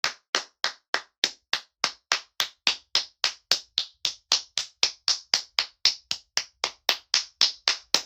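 Steady rhythmic clapping, about three to four claps a second, kept up without a break.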